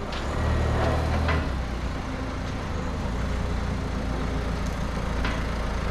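A vehicle engine idling: a steady low hum, a little louder in the first second and a half.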